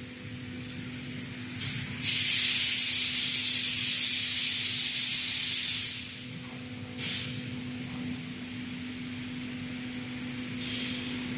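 Compressed air hissing from a robot's vacuum suction-cup gripper as it picks up laser-cut steel parts: a brief hiss, then a loud steady hiss for about four seconds that cuts off suddenly, then another short burst about a second later. A steady machine hum runs underneath.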